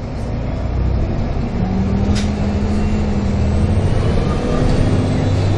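Volvo B7TL double-decker bus's 7-litre six-cylinder diesel engine running steadily while the bus is under way, heard from inside the saloon. A single sharp knock comes about two seconds in, and a faint high whine rises and falls in the second half.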